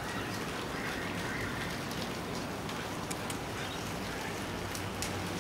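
Steady rain falling in the garden, an even hiss with a few light drip ticks, and a faint high tone about a second in.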